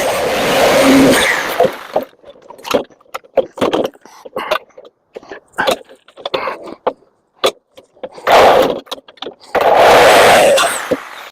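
Reciprocating saw cutting through metal in runs, stopping about two seconds in and starting again twice near the end, with scattered clanks and rattles of metal parts being handled in between.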